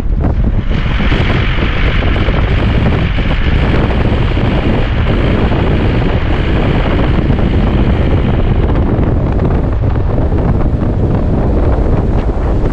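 Strong wind buffeting the microphone as a heavy, steady rumble, with a rushing hiss over it that fades about nine seconds in.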